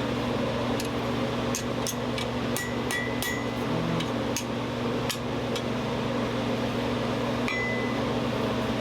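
Steel tongs clicking and clinking against a steel workpiece as they are fitted to it: several light metallic clicks in the first five seconds, some with a brief ring, and one more near the end. Under them runs the steady hum of a blower fan.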